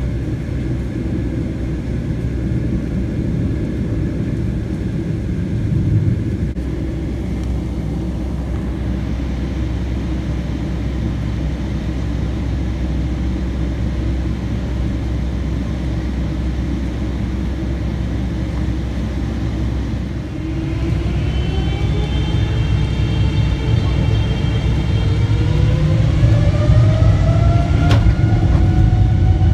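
Boeing 777-300ER's GE90-115B jet engines heard from inside the cabin: a steady low rumble while taxiing, then, about two-thirds of the way in, the engines spool up to takeoff thrust with a whine that rises in pitch and grows louder as the takeoff roll begins.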